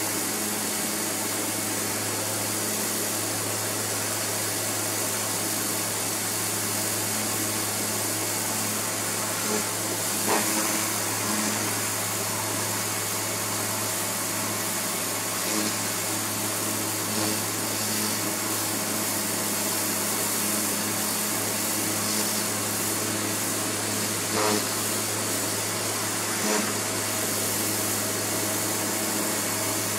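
Karcher electric pressure washer running steadily: the pump motor's constant hum under the hiss of the high-pressure water jet spraying onto a plastic sun lounger.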